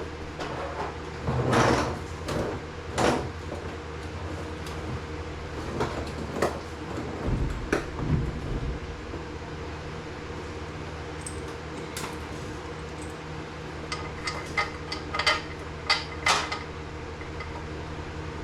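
Scattered metal clanks and knocks, then a run of sharp clinks that ring briefly, over a steady low hum.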